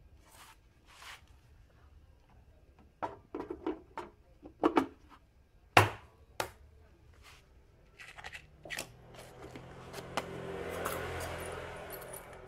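Clicks and knocks of metal parts and tools being handled during scooter CVT reassembly, the loudest knock about six seconds in, then a few seconds of scraping rustle that swells and fades near the end.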